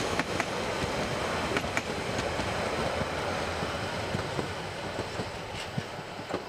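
Steam train of the Brockenbahn, the Harz narrow-gauge railway, heard climbing toward the Brocken: a steady rumble and hiss with scattered clicks and rattles.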